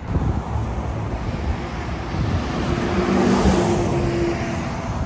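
Wind buffeting the microphone, with a car driving past, loudest about three and a half seconds in.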